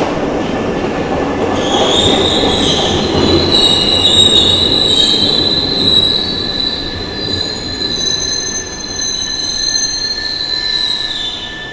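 Glasgow Subway train pulling into the platform: a low rumble, then from about two seconds in a loud, high metallic squeal of several steady tones that lasts until near the end, dipping in pitch as the train slows.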